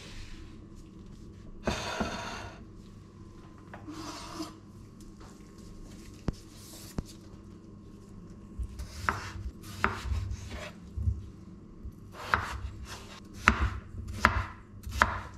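A wooden cutting board is set down and shifted on the countertop, with a scrape about two seconds in. From about nine seconds on, a chef's knife cuts peeled potatoes into chunks, knocking sharply on the wooden board in an irregular run of strokes.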